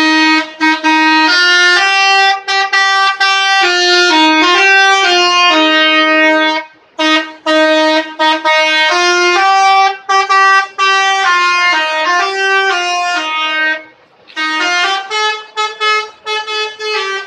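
Indonesian 'telolet' multi-tone bus horn playing a loud melody of stepped notes. It breaks off briefly twice, then goes on in short, quick toots.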